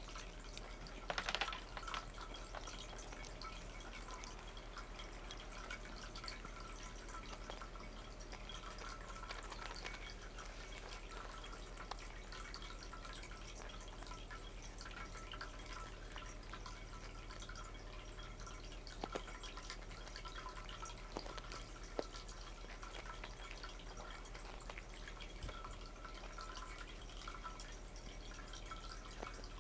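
Cats licking and eating treats off the floor: faint, wet smacking and clicking throughout, with a louder brief burst about a second in and a few sharper clicks later.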